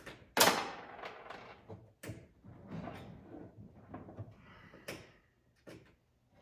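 Handling noise from fitting a UTV's rear window panel to its roll cage: a sharp clack about half a second in, the loudest sound, then scraping and rustling with a few lighter clicks.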